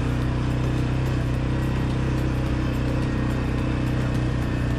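2018 CF Moto 520L ATV's single-cylinder four-stroke engine running steadily at an even pitch.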